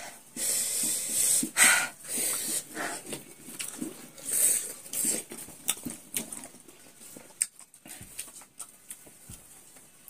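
Sharp hissing breaths sucked in through the teeth and wheezy exhalations in short bursts from people chewing very sour lemon with chili and salt, a reaction to the sourness. The bursts are loudest in the first half and fade to fainter breaths and small mouth clicks toward the end.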